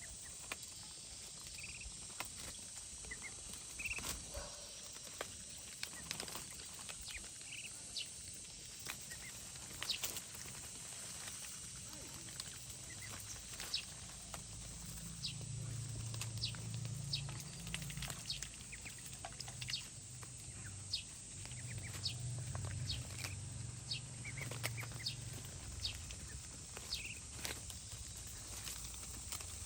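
Ducks feeding on vegetables: many quick clicks and snaps of their bills pecking and tearing at the food, with a few short high chirps in the first seconds. A low hum rises and fades twice in the middle.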